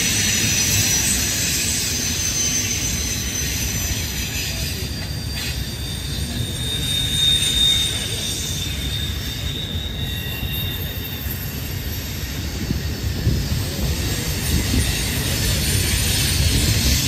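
Double-stack intermodal container cars rolling past in a steady low rumble of wheels on rail, with high wheel squeal coming and going, clearest in the middle.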